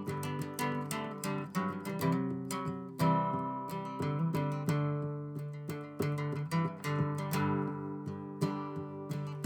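Acoustic guitar strumming chords in a steady rhythm: an instrumental break between sung verses of a folk song.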